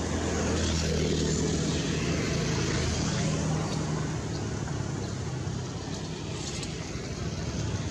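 A motor vehicle engine running, a steady low hum that is strongest in the first few seconds and eases off after the middle.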